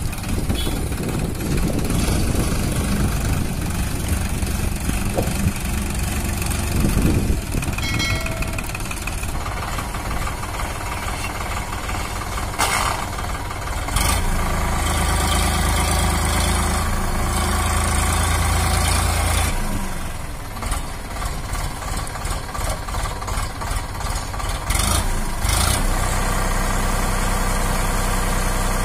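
Sonalika DI 47 RX tractor's three-cylinder diesel engine running while it moves a trolley loaded with stones, louder for about five seconds in the middle as it works harder, then uneven for a few seconds before settling back to a steady run.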